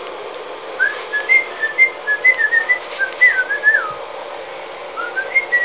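A person whistling a quick run of short notes, some sliding up or down in pitch, then a few more notes near the end.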